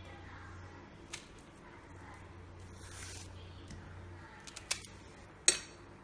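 Hands peeling ripe nendran bananas and handling a kitchen knife over a glass bowl: a soft rustle of peel, a few light clicks, and one sharp click near the end.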